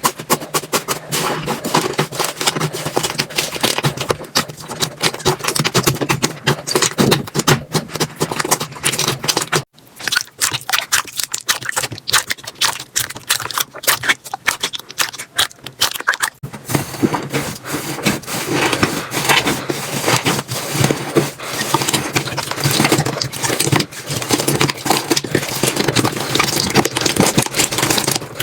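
Slime being squeezed, pressed and stretched by hand close to the microphone: a dense run of wet crackling and popping clicks. It breaks off for a moment about ten seconds in and changes texture a little past halfway, as one slime gives way to another.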